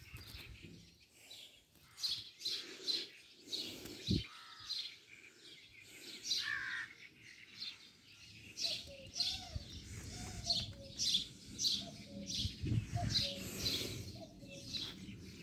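Songbirds chirping outdoors: a series of short, high chirps repeating throughout, joined in the second half by a lower warbling call. A single soft low knock about four seconds in.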